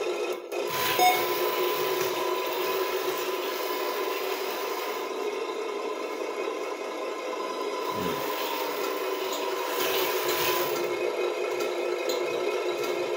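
Simulated truck diesel engine sound from an RC model truck's GT Power sound module, running steadily through a small speaker in the cab while the truck drives on a wooden counter. A little rattling and scraping from the model is mixed in.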